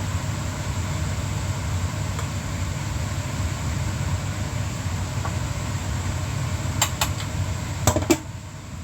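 A steady low rumble with a faint hiss, like a running motor or fan. Near the end come four sharp clicks and knocks, two close pairs, and the rumble then drops away.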